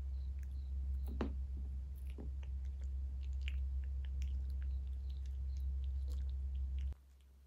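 Cat crunching dry kibble, with irregular crisp crunches and clicks, the loudest about a second in. Under it runs a steady low hum that cuts off suddenly near the end.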